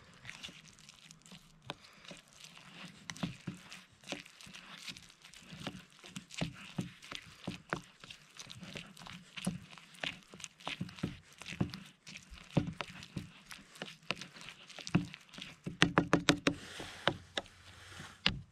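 A plastic spoon stirring thick oatmeal in a plastic camping bowl, scraping and clicking irregularly against the bowl, with a quick run of clicks near the end.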